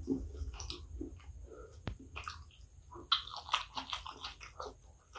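Close-miked chewing of kottu roti with wet mouth and lip smacks, and from about three seconds in a dense run of sticky crackling clicks as fingers pick through the kottu on its plastic wrapper.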